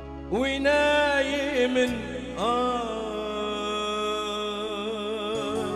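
Male singer in a Kurdish song singing two long, ornamented phrases over a live band. The first enters with an upward glide about a third of a second in; the second starts a couple of seconds later and is held with a wavering, melismatic ornament.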